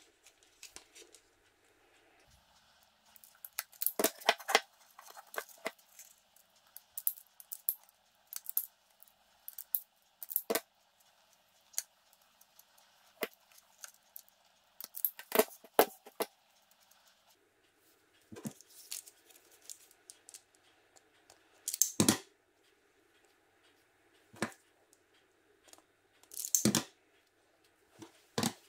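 Automatic wire stripper clicking and snapping as its jaws close on and strip thin wires, mixed with small knocks from handling the plastic mirror housing. The clicks come irregularly, with the two loudest in the last third.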